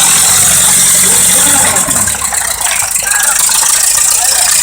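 1924 Ford Model T's four-cylinder engine running with a rattle, its low drone dropping away about two seconds in, over a steady hiss.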